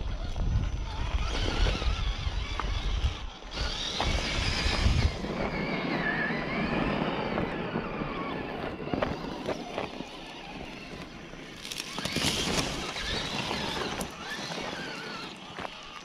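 Radio-controlled scale crawler driving over rough ground, its small electric motor and gears whining, with scattered clicks and knocks of the truck on rock.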